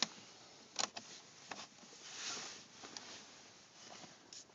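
A few faint, sharp plastic clicks over a low hiss: creaking from the dashboard trim around the Audi A6's climate control panel. It is the kind of creak heard somewhere in the dash after the panel has been taken out and put back, which the owner suspects comes from broken clips.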